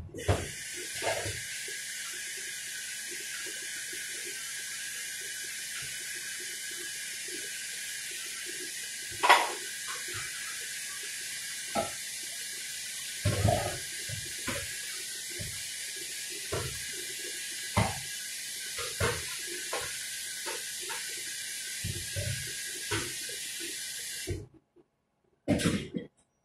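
Kitchen tap running steadily into a sink while bowls and utensils knock and clatter as they are washed. The water shuts off abruptly near the end, followed by a brief clatter of dishes.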